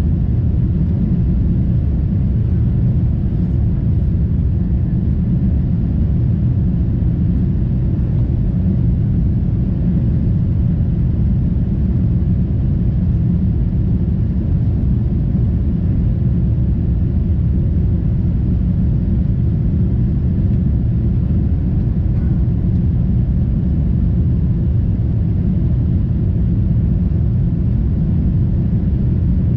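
Steady low rumble inside the cabin of a Boeing 747-8 airliner in flight: engine and airflow noise heard from a window seat, unchanging throughout.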